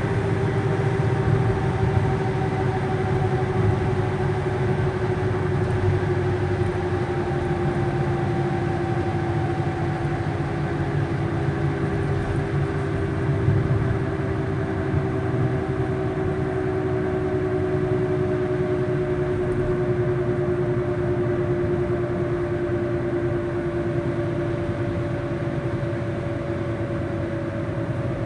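Kia Rio droning: a steady hum with a higher overtone, both slowly falling in pitch, over a constant low rumble.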